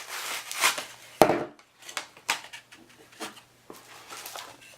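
Unpacking noises: an accessory being pulled from its box, with rubbing, scraping and tapping of plastic and cardboard and one sharp knock about a second in.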